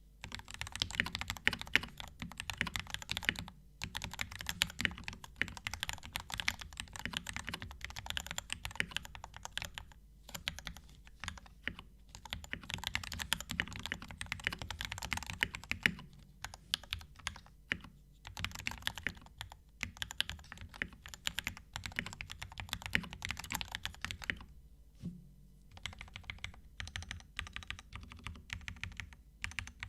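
Typing on a Tester68 mechanical keyboard with Gateron Pro Milky Yellow linear switches and PBT keycaps: fast runs of keystrokes broken by short pauses, with the occasional louder stroke of a stabilised key such as the space bar.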